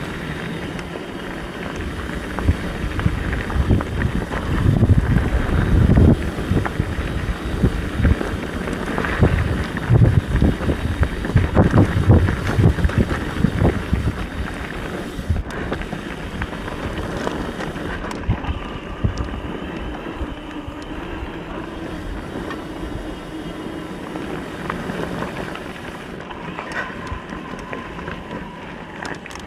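Mountain bike descending a dirt trail, heard from a camera mounted on the rider or bike: wind rushing over the microphone, tyres on dirt and rock, and the bike knocking and rattling over bumps. It is loudest and roughest in the first half, then eases to a steadier, quieter run.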